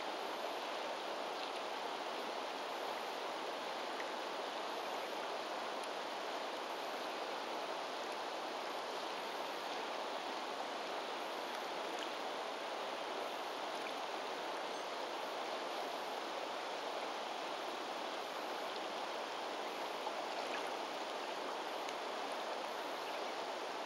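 Steady rushing of a river flowing over a stony bed.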